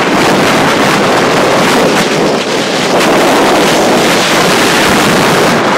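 Wind rushing steadily and loudly over the microphone of a camera carried by a skier moving fast downhill.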